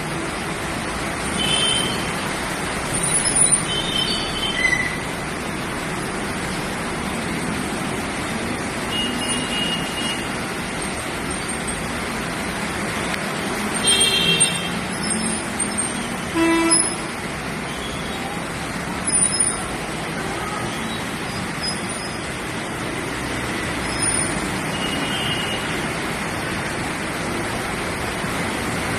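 Street traffic with a steady rush of vehicle noise and short vehicle horn toots sounding several times.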